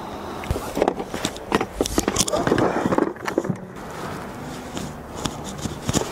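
Wooden plein-air paint box on a tripod being handled: a run of clicks and knocks of wood and brass latch fittings with some rustling, busiest in the first half, then a few scattered clicks.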